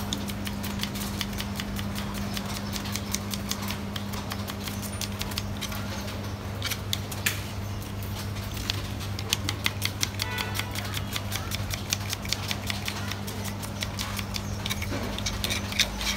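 A knife rapidly chopping shallots on a wooden block: a quick, uneven run of sharp taps, several a second, over a steady low hum.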